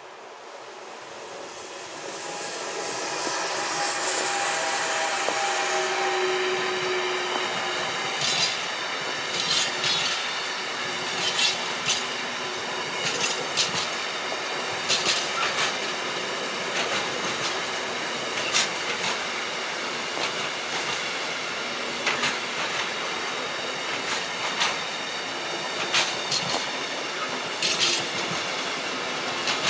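An electric locomotive approaches and passes, louder over the first few seconds, with a faint steady whine. A long freight train of tank-container wagons follows, rumbling past steadily, its wheels clicking sharply and unevenly over rail joints.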